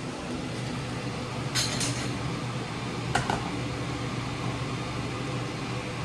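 Kitchen handling sounds: a few short clinks of dishes or pots, a cluster about one and a half seconds in and another about three seconds in, over a steady low hum.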